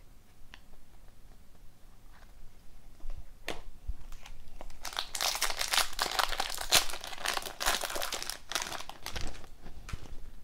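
Foil wrapper of an O-Pee-Chee Platinum hockey card pack being torn open and crinkled by hand: a few light taps first, then a dense run of crackling and tearing from about halfway in that stops shortly before the end.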